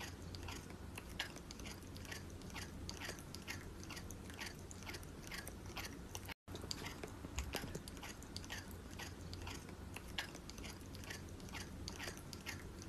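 Silver tabby cat crunching dry kibble, about two to three crisp crunches a second, with a brief break about halfway through.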